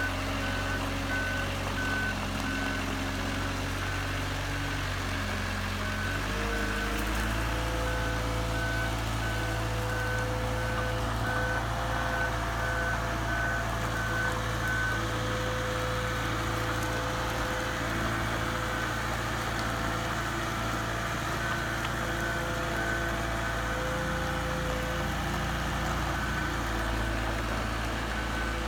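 Boatyard travel lift's engine running steadily while it carries a sailboat in slings, with its motion alarm beeping evenly over it. The engine note changes about six seconds in as the lift gets under way.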